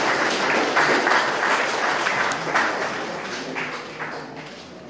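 A small audience applauding, the clapping thinning out and dying away over the last second or so.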